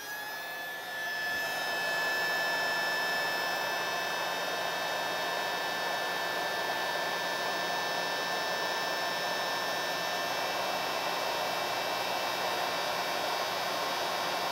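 Electric heat gun with a reducer nozzle running on its low fan speed. It spins up over the first two seconds into a steady rush of air, with a high whine that fades out about ten seconds in. It is blowing hot air onto an LED on a TV backlight strip to melt the solder beneath it.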